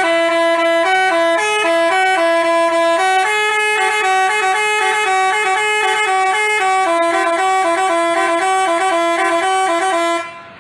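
Basuri telolet multi-tone horn playing a fast melody of short, stepping notes, stopping shortly before the end.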